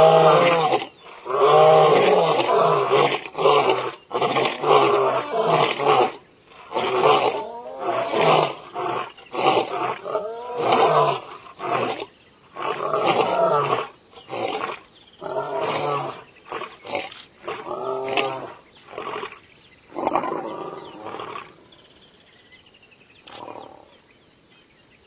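Male lion roaring while lying down: a bout of a few long, full roars that breaks into a run of shorter grunting roars, each briefer and fainter, dying away about three quarters of the way through.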